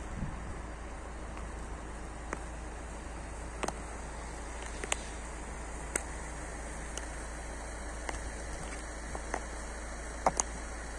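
Stiletto heels of patent leather boots clicking on asphalt in slow footsteps, roughly one a second and unevenly spaced, with a sharp double click near the end. Under them is a steady outdoor hiss.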